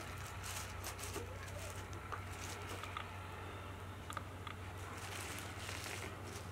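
Knife cutting raw liver on a plastic bag, with scattered soft clicks of the blade and crinkling of the plastic over a steady low hum.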